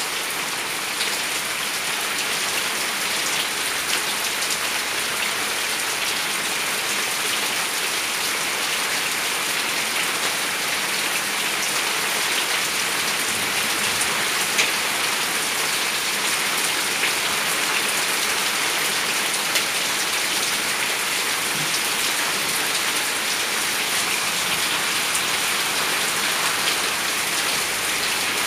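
Steady rain falling on a yard's concrete path and plants, with a few sharper drop hits here and there.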